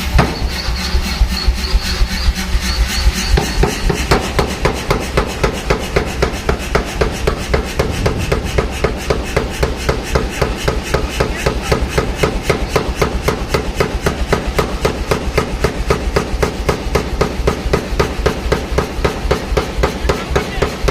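Pneumatic air forging hammer running, its ram striking in a fast, even rhythm of several blows a second over a steady low drone.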